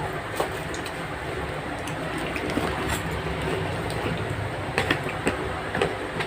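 Steady background hum with a few small clicks and taps from eating and handling food.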